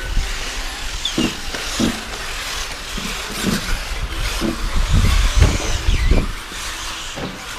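Radio-controlled off-road race cars running on a dirt track: a steady high whine and hiss of motors and tyres, with several low thumps, the loudest a little past the middle.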